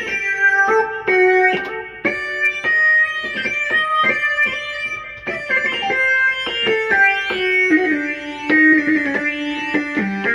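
Hardware synthesizer played with both hands: a bright, plucked-sounding patch with sharp note attacks, a quick melody over chords. The lower notes step down in pitch near the end.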